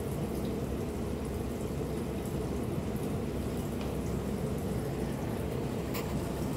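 A corgi panting with its tongue out, over a steady low rushing noise. A single sharp click about six seconds in.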